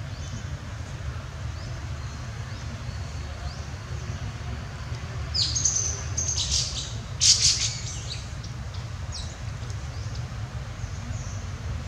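Birds chirping: a quick run of loud, high calls about five and a half to eight seconds in, with fainter short chirps now and then throughout, over a steady low rumble.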